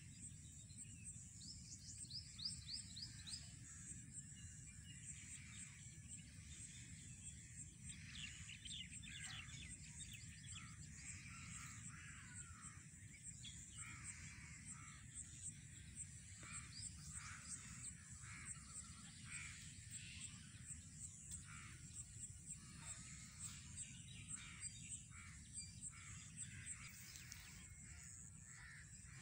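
Faint outdoor bird calls and chirps, many short calls one after another, over a steady run of high-pitched pulsing chirps and a low, constant rumble.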